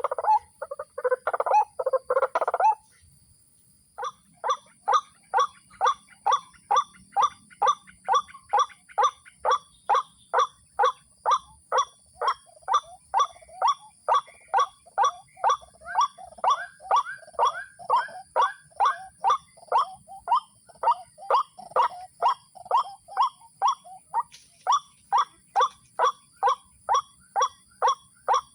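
White-breasted waterhen calling: a dense, harsh burst of calls for the first few seconds, then after a short pause a long run of evenly repeated single notes, a little over two a second.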